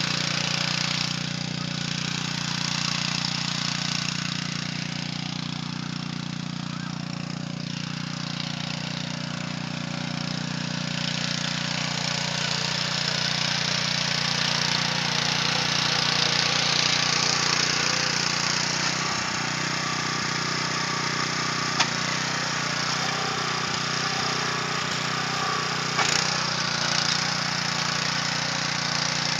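Honda mini tiller's small four-stroke petrol engine running steadily under load while its rotating tines churn through the soil.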